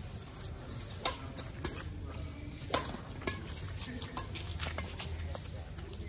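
Badminton rackets striking a shuttlecock during a rally: sharp snapping hits, the two loudest about a second and a half apart, with fainter hits between and after. A steady low rumble lies underneath.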